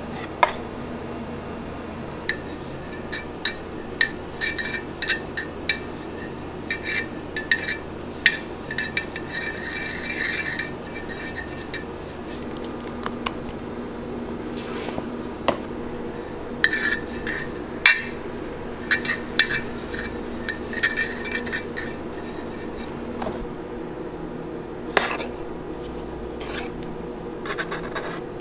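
Metal spatula clinking, tapping and scraping against a stainless-steel tray and bowl while cream is spread on sponge cake layers: irregular clinks and short scrapes, denser in a few stretches, over a steady low hum.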